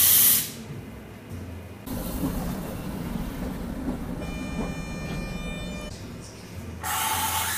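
A Prague tram rumbling beside the platform, with a chord of high steady tones sounding for about a second midway. The espresso machine's loud hiss is heard briefly at the start and returns near the end.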